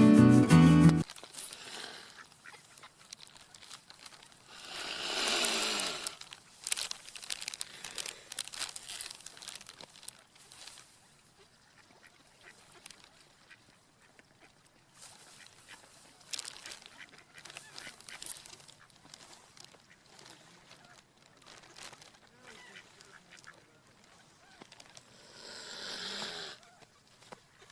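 Guitar music cuts off about a second in, then swans calling with honks: two longer, louder calls, one about five seconds in and one near the end, with fainter short sounds scattered between.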